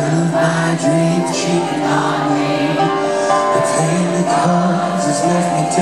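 Live pop band performance: a male lead singer singing into a microphone over sustained keyboard chords and the band, heard through the venue's PA.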